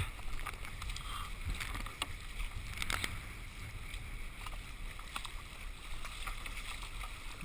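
Water rushing and splashing against a surf ski running fast on a wave, with a low rumble of wind on the action camera's microphone and a few short splashes along the way.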